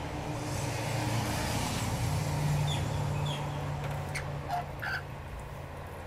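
Low road-traffic rumble with a passing vehicle swelling and fading about halfway through. Over it, rainbow lorikeets give a few short, sharp chirps in the second half as they feed from the hand.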